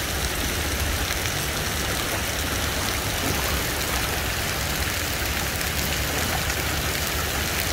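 Steady rush of splashing water from an outdoor pool's water jets and water slide, with a low rumble underneath.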